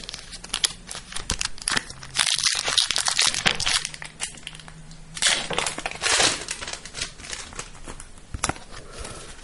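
Foil wrapper of a Pokémon trading-card booster pack crinkling and crackling as it is torn open, in two louder bursts about two seconds and five seconds in, with lighter clicks between.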